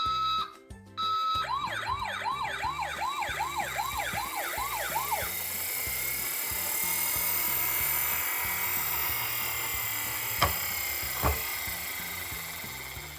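Toy ambulance's electronic siren: two short beeps, then a fast up-and-down wail, a little over two cycles a second for about four seconds, followed by a hissing noise and two sharp clicks near the end. Background music with a steady beat runs underneath.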